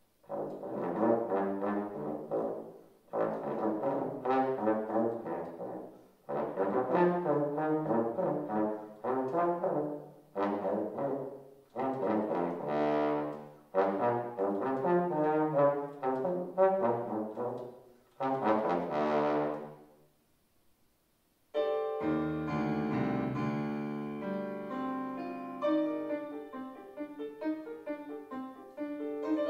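Bass trombone playing a string of short phrases, each ringing off into the hall before the next. After a pause of about a second, a piano takes over alone with a quick passage of chords and runs while the trombone rests.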